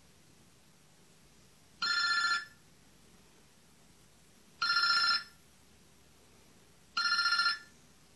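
Telephone ringing: three short trilling rings about two and a half seconds apart.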